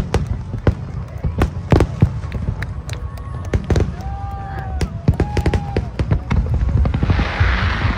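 Fireworks display: aerial shells bursting in a rapid, irregular run of sharp bangs and cracks over a steady low rumble, with a hiss swelling near the end.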